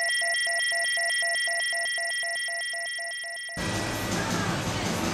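Electronic sound effect: several steady high tones over a fast, even train of beeps, several a second, cutting off suddenly about three and a half seconds in. It gives way to a noisy room ambience.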